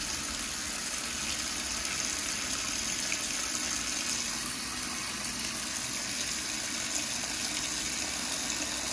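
Shower-head spray pouring steadily into the wash tub of a compact twin-tub washing machine, splashing onto the clothes and water as the tub fills.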